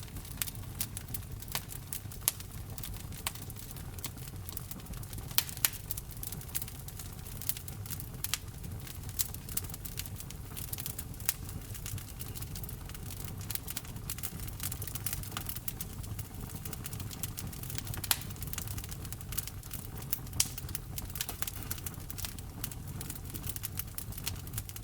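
Wood fire burning in a fireplace: a steady stream of sharp crackles and pops from the burning logs, a few of them louder, over a low rumble of the flames.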